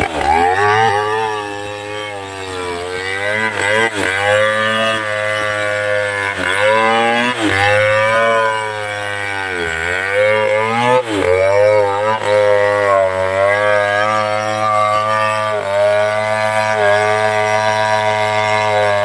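Two-stroke chainsaw running hard while cutting into a big trunk. Its engine pitch sags repeatedly, every second or two, as the chain bites under load, then picks back up.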